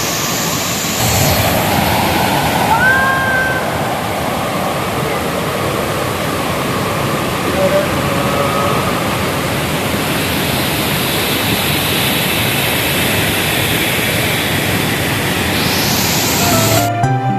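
Steady rushing roar of a large waterfall, Handawada falls, with a few short rising whistle-like calls about three seconds in. Music comes in just before the end.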